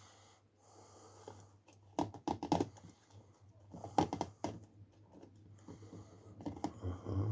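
Short clusters of small clicks and taps from picking bigger sticks out of blended plant mash in a sieve, three times over a few seconds.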